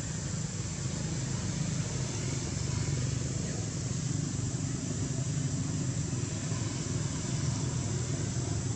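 Steady low rumble with an even hiss, unchanging throughout, with no distinct calls or knocks standing out.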